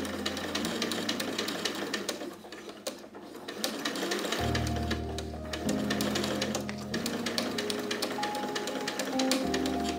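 Domestic sewing machine running in fast, even needle strokes as it stitches Rigilene boning onto a cotton lining. It eases off briefly about two to three seconds in, then runs on, over background music.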